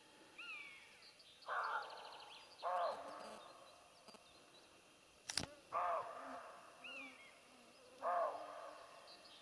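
Two Siberian roe deer bucks barking at each other from cover, about five short, hoarse barks a second or more apart: territorial barking between rival bucks. A bird's thin whistles come in twice, and there is one sharp click about halfway through.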